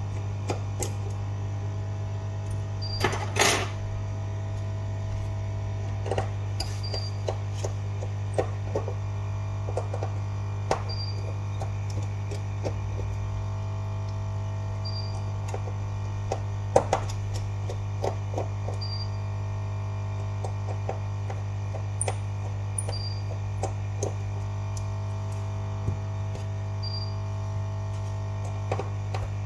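Light clicks and taps of small repair tools and phone parts being handled during smartphone disassembly, with a louder scraping clatter about three seconds in, over a steady electrical hum. A faint short high beep repeats about every four seconds.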